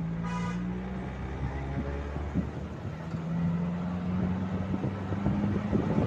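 Road vehicle engine running on the move, with one short horn toot about half a second in. The engine note climbs a little in the second half.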